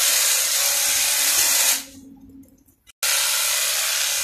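Makita hedge trimmer running at full speed, its blades cutting through a leafy shrub with a steady high buzzing hiss. It cuts off just before two seconds in and starts again abruptly about a second later.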